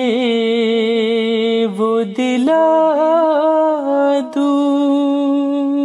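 A solo voice singing a Urdu noha, a Shia lament, without instruments: slow, long-held notes that waver slightly, with a short breath break about two seconds in.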